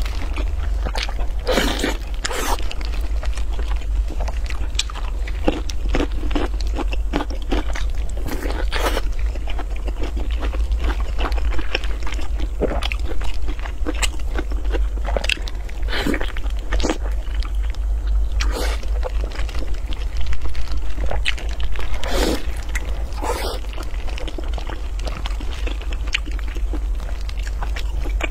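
Close-up eating: biting, tearing and chewing braised pork knuckle, with irregular crunches and clicks from the mouth and the food in gloved hands. A steady low hum runs underneath.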